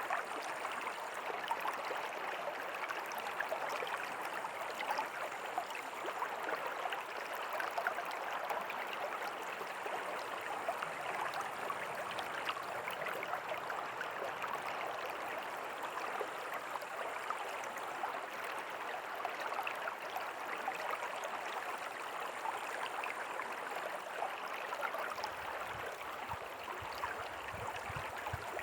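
River water flowing steadily: a constant, even rush flecked with small splashes and gurgles. A faint low rumble joins in near the end.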